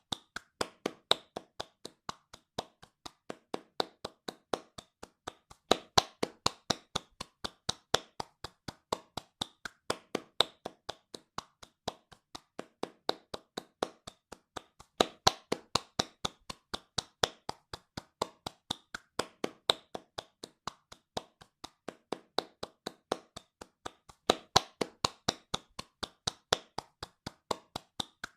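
Hands clapping fast and evenly, about three to four sharp claps a second, some claps louder than others.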